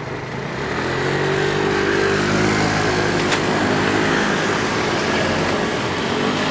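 A vehicle engine running and accelerating, its pitch rising from about a second in as it grows louder, with a single sharp click about halfway through.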